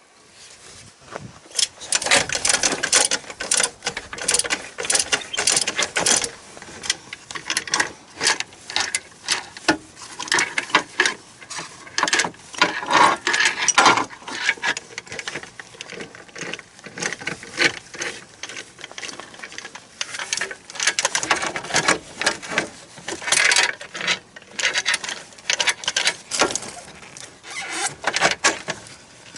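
Hand ratchet wrench clicking in quick, irregular runs while bolts are turned on the joint of a rubber crawler track.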